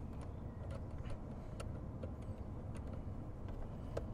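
Scattered light clicks, roughly one every half second, from a screw and tool being worked on the last fastener of a car door speaker, over a low steady background rumble.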